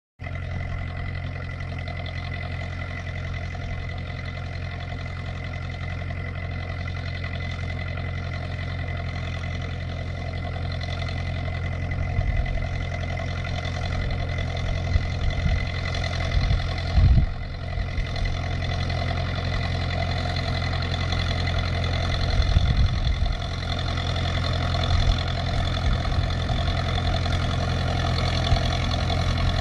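Rebuilt International 276 tractor engine running steadily under load while pulling a 4-ton flat roller across grass, gradually getting louder as it comes closer. A few brief low thumps break in midway.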